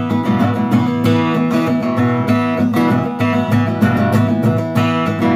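Guitar strummed in a steady rhythm, chords ringing on between strokes.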